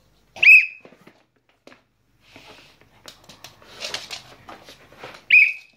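A person's short whistle, a single clear note that rises and then holds briefly, sounded twice: about half a second in and again near the end. In between are rustling and light knocks from close handling.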